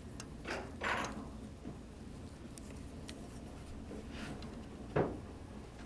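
Quiet handling sounds of hooped fabric and silk ribbon being arranged under a sewing machine needle: faint rustles and a few short soft knocks, the sharpest about five seconds in, over a low steady hum.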